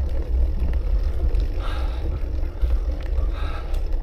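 Wind buffeting the microphone in a steady low rumble, with a hard-breathing cyclist's loud exhales twice, about every second and a half to two seconds, as he strains up a very steep climb.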